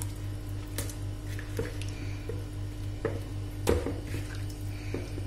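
A hand squelching and rubbing pieces of sheep's neck meat in a watery spice marinade in a plastic bowl, with several soft knocks, over a steady low hum.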